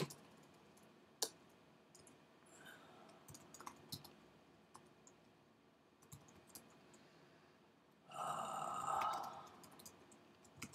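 Faint, scattered clicks of a computer keyboard and mouse as text is typed in, with a louder noise lasting about a second about eight seconds in.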